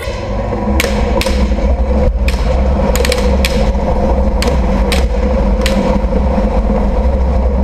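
Battle tank's engine running with a loud, steady deep rumble, heard from on the tank itself. Sharp knocks break in at irregular intervals, about one or two a second.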